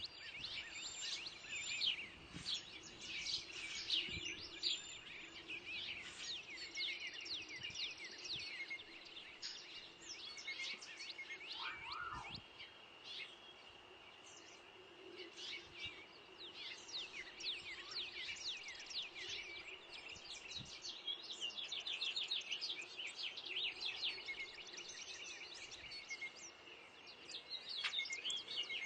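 Songbirds chirping and calling, many quick overlapping chirps throughout, with a lower call about twelve seconds in and a faint steady hum underneath.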